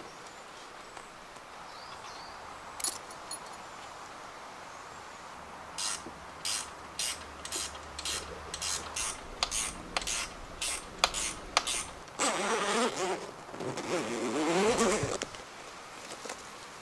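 Fitting gear to a metal roof rack: a run of short sharp clicks, roughly two a second, then a longer rasping pull about twelve seconds in as the rolled shower-tent bag is strapped down.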